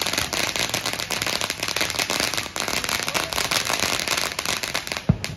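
Ground fountain firework spraying sparks with rapid, dense crackling. One sharper, louder bang comes near the end, then the crackling stops.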